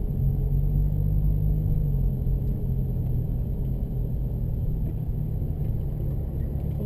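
Porsche 996 Turbo's twin-turbo flat-six running at low revs, a steady low rumble heard from inside the cabin as the car rolls slowly, a little louder for the first couple of seconds.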